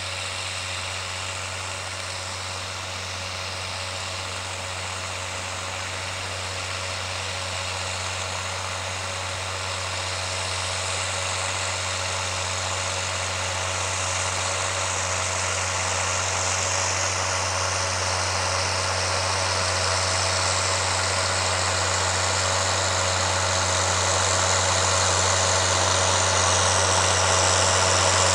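John Deere 7810 tractor's six-cylinder diesel engine running steadily under ploughing load, with a constant low drone that grows gradually louder.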